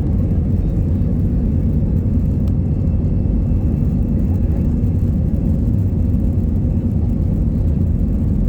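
Steady low rumble of an airliner cabin, with a faint thin high tone running through it.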